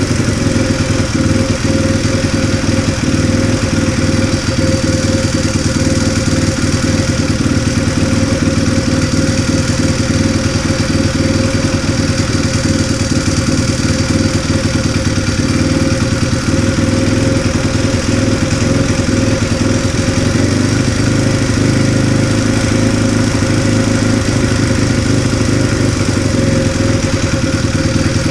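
Honda Jazz 50cc single-cylinder four-stroke motorcycle engine running steadily, heard for valve noise just after its tappet clearances were re-adjusted.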